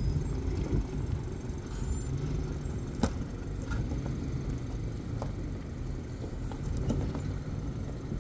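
A vehicle engine running with a low, steady rumble, with a few sharp knocks, the loudest about three seconds in.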